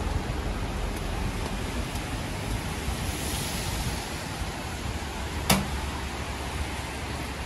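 Steady hiss of a rainy street, rain and traffic on wet pavement, swelling briefly about three seconds in. A single sharp click or knock about five and a half seconds in.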